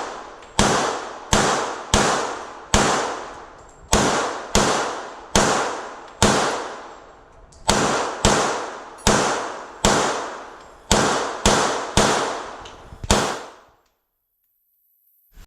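A string of gunshots at a shooting range: a firearm fired rapidly, about one and a half shots a second, around eighteen rounds in strings with short pauses, each shot ringing out briefly. The shots cut off to dead silence shortly before the end.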